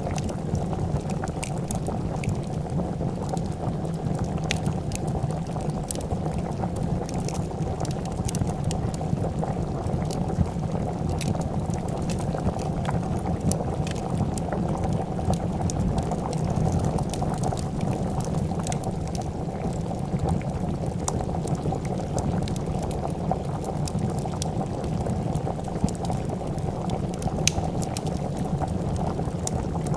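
A pot of soup bubbling at a steady boil, with scattered sharp crackles from a wood fire.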